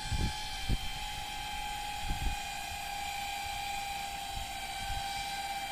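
Remote-controlled lawn mower running with a steady high whine that sets in as its control is pushed up, with a few low knocks in the first couple of seconds.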